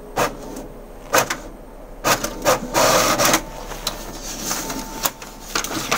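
Epson M2170 ink-tank printer running a photocopy: sharp mechanical clicks about once a second, with a longer stretch of paper-feed and print mechanism whirring about two seconds in.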